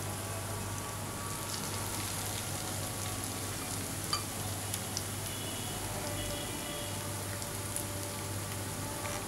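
Breaded fish cutlets shallow-frying in oil: a steady sizzle with scattered small pops, one sharper pop about four seconds in, over a low steady hum.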